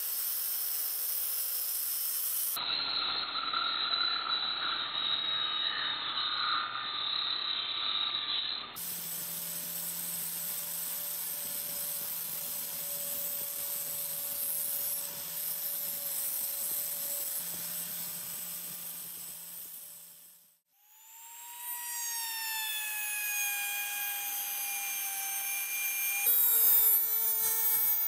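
Electric power tools sanding wood in several short takes. First a spinning sanding disc on a backing pad and an angle grinder's sanding disc with wood pressed against it, then a rotary tool's sanding drum, each a steady motor whine with the rasp of abrasive on wood. About two-thirds of the way through the sound drops out for a moment, and near the end a louder, higher whine comes in.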